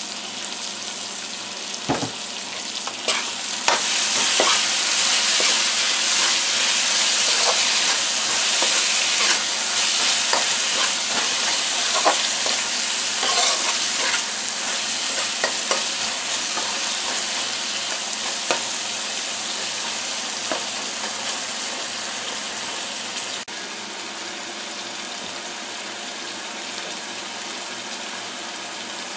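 Curry paste of onions, scallions and tomato sizzling as it fries in a pan, with a spoon stirring it and now and then scraping and tapping the pan. The sizzle grows louder about four seconds in and slowly eases off in the second half.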